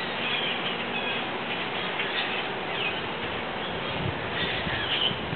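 Short, high bird calls scattered over a steady outdoor hiss, the clearest call near the end.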